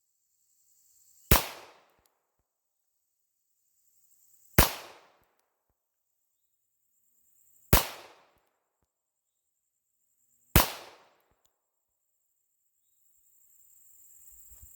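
Four single shots from a Springfield Armory 1911 pistol, spaced about three seconds apart. Each is a sharp crack with a short decaying echo.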